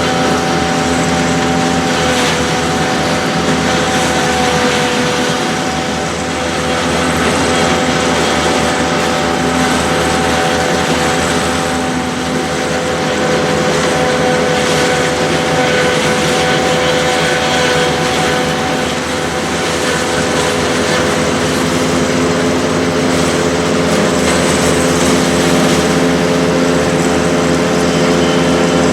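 Farm tractor and harvesting machinery running steadily, with a constant engine note and a steady mechanical whine held throughout.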